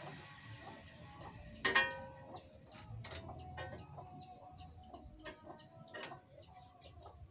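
Chickens clucking faintly, with a sharp metallic clink about a second and a half in and small clicks of hand work on the engine.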